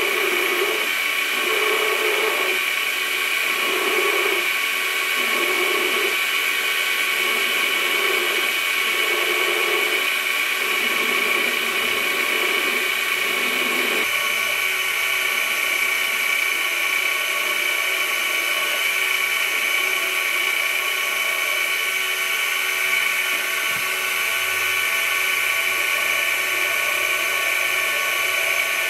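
Belt grinder running with a steady high whine while a small metal knife-handle fitting is ground against the belt over a small contact wheel. Through the first half the grinding swells and fades in repeated passes about every second and a half; after that it grinds more steadily.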